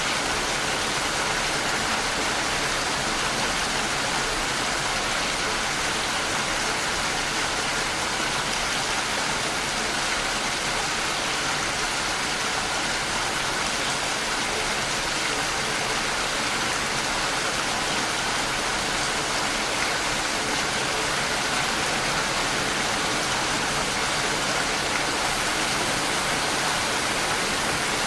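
Steady, even rain, a constant dense hiss without distinct drops or thunder.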